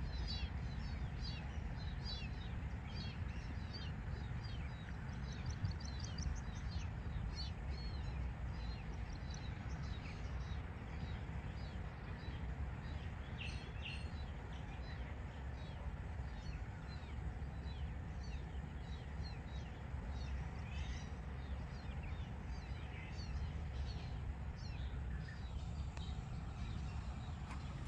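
Small birds chirping over and over in short high notes, over a steady low rumble of background noise.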